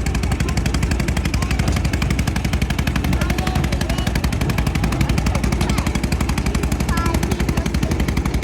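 An engine running with a rapid, even pulsing and a strong low rumble.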